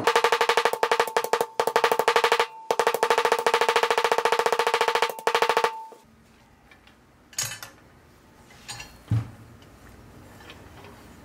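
A very fast run of sharp metallic taps with a ringing tone, broken once briefly and stopping about six seconds in. After that, only a few soft knocks follow as the pressed-steel toy truck is handled.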